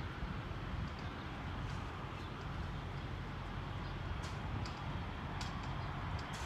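Wind buffeting the microphone as a steady, uneven low rumble, with a few light clicks and taps scattered through, most of them in the second half.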